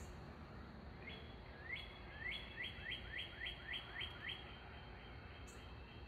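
A songbird sings a run of about nine clear whistled notes, each sweeping quickly upward, at about three a second, starting about a second in, over faint steady outdoor background noise.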